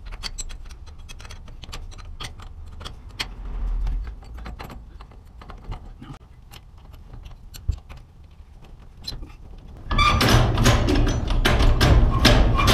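Scattered light metallic clicks and clinks from a wrench on the set screws of a garage door torsion spring's cable drum. About ten seconds in, a louder stretch of metal scraping and rattling starts as the steel torsion shaft is worked through its bearing, dragging where the set screws have knurled it.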